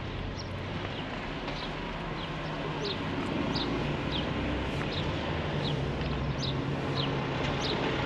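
Vehicle driving slowly, a steady road and engine hum heard from inside the cab, with a bird chirping repeatedly: short, high, falling chirps about once or twice a second.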